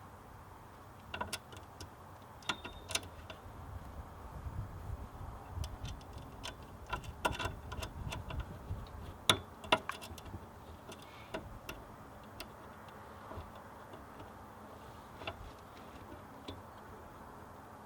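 Irregular clicks and light metallic knocks of heavy battery cables, lugs and tools being handled while the inverter's connections are laid out, busiest through the middle, the loudest knock a little past halfway.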